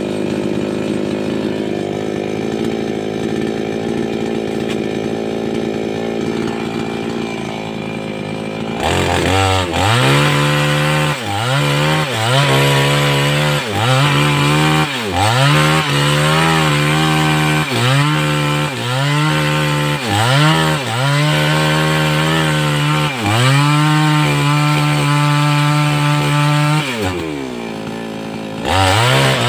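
588X two-stroke petrol chainsaw running at a steady speed, then from about nine seconds in revved up and down over and over, roughly every two seconds, as it cuts through sengon wood; near the end it drops back briefly before revving up again.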